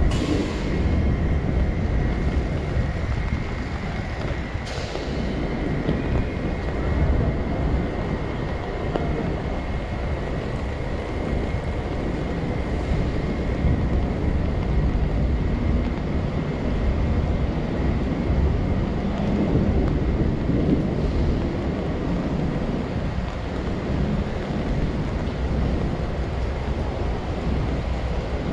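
Steady low rumble of city street traffic mixed with wind buffeting the microphone, with two sharp clicks near the start and about five seconds in.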